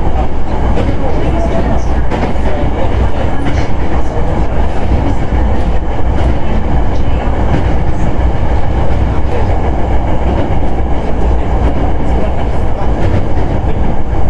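Hankyu 9300 series electric train with Toyo IGBT-VVVF inverter control, running along the line: a loud, steady low rumble of wheels on rail with faint knocks here and there.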